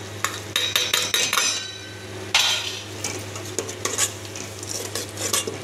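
Slotted metal spatula scraping and clinking against the side and bottom of a metal cooking pot as the ingredients are stirred: a run of quick scrapes and knocks, one louder scrape about two seconds in.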